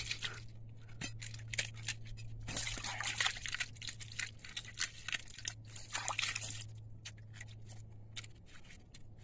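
Sea urchin shells being cracked and pried open by hand and with a small knife: irregular crunches and clicks, thickest about three seconds in and again near six seconds, with wet trickling and sloshing of water.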